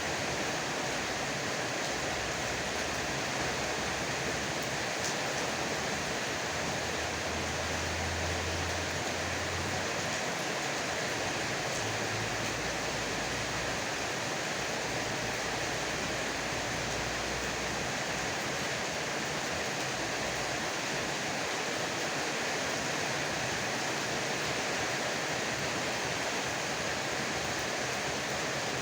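Heavy rain falling steadily, an even hiss. A faint low rumble rises under it for a while about a quarter of the way in.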